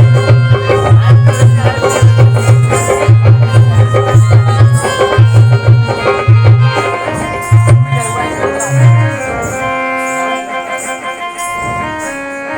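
Instrumental music interlude: a drum beats a steady rhythm under a melody. About nine seconds in the drumming stops, leaving a melody instrument holding long notes.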